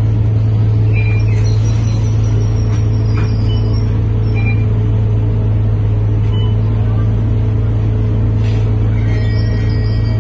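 Scania K230UB city bus's diesel engine and ZF automatic gearbox heard from inside the passenger cabin while cruising: a loud, steady drone holding one pitch, with no gear change.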